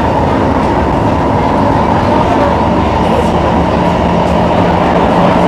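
Cabin noise of a Singapore MRT train running: a loud, steady rush and rumble of wheels on rail, with a low steady hum coming in about halfway.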